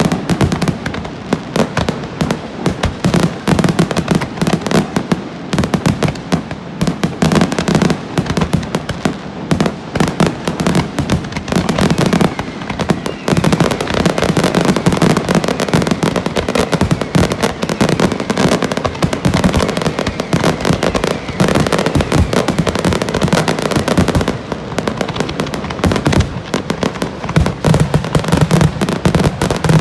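Fireworks display in a dense, continuous barrage: bursts and crackling bangs come several a second and overlap with hardly a gap.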